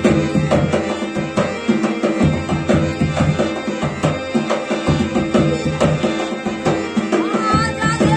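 Rajasthani folk devotional song in an instrumental passage: a steady, driving hand-drum rhythm with melodic accompaniment, and a held, wavering melody line entering near the end.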